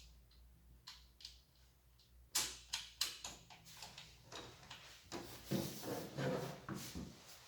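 Handling noise from unpacking: irregular clicks, knocks and rustles as parts and packaging are moved, quiet for the first two seconds, then a busier, louder stretch past the middle.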